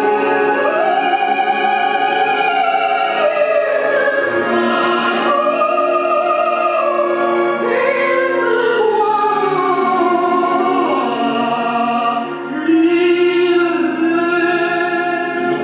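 Recorded operatic singing: a high voice holding long notes that swell and glide from pitch to pitch.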